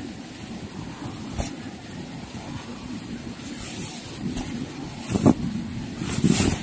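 Nylon drawstring stuff sack being handled and opened: fabric rustling with sharp clicks about a second in and again about five seconds in, over a steady low rumble.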